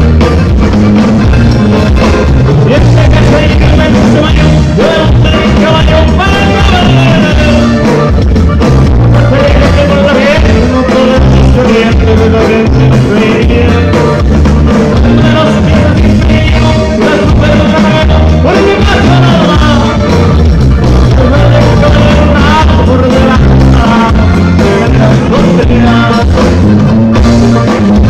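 Norteño band playing live through a PA: an accordion melody over bass, guitars and drums with a steady beat.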